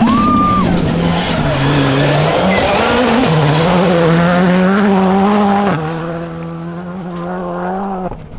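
Rally car engine at full throttle on a gravel stage, its pitch jumping up and down with gear changes, getting quieter over the last couple of seconds.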